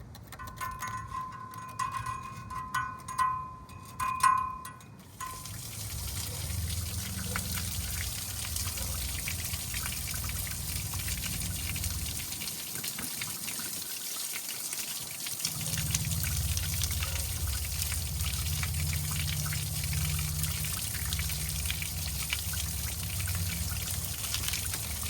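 Chiming background music for the first few seconds, then a steady spray of water washing mud out of an outboard motor. A low rumble in the spray drops out for a few seconds midway.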